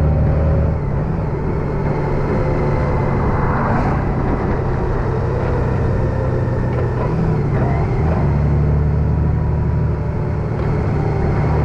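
Honda Gold Wing DCT's flat-six engine running while riding, with wind and road noise over it. The low engine tone is strong at first, drops back about a second in, and comes up strongly again at about eight seconds.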